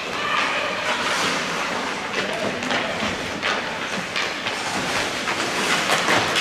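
Youth ice hockey play: skate blades scraping and carving on the ice, with many sharp clacks of sticks and puck.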